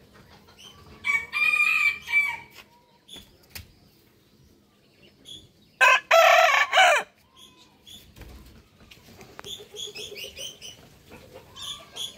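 Rooster crowing twice, two short loud crows about five seconds apart, the second falling in pitch at its end. Faint short chirps come between the crows, and near the end the birds give a run of quick clucks.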